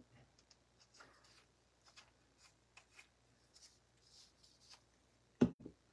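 Faint rustling and light ticks of small craft pieces being handled on a desk, then a sharp tap near the end followed by a softer one.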